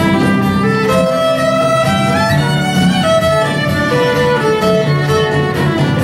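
Violin played live, a flowing melody of held notes with slides between them, over a low steady backing.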